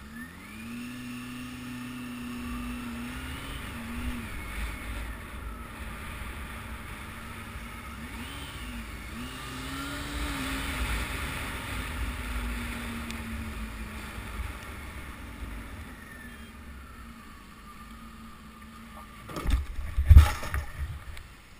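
Honda CB600F Hornet's inline-four engine running under way, its pitch rising as it pulls away and rising and falling with the throttle, over wind and road rumble. About 19 seconds in come a few loud crashing impacts as a car hits the motorcycle side-on and it goes down.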